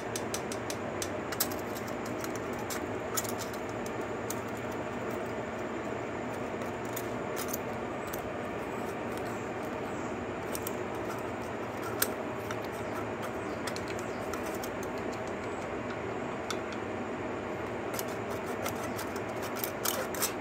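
Light metallic clicks and taps from hands and tools working at the valve gear of a Suzuki DR-Z125's single-cylinder head, scattered throughout with a few sharper clicks, the loudest about twelve seconds in. Under them runs a steady background noise.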